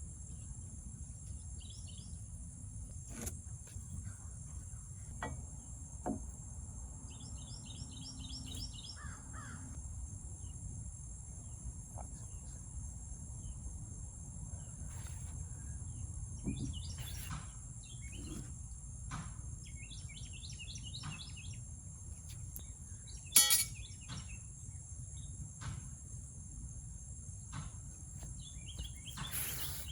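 Outdoor ambience: birds chirping in short repeated phrases over a steady high insect drone and a low rumble, with scattered light clicks and one sharp knock about three-quarters of the way through.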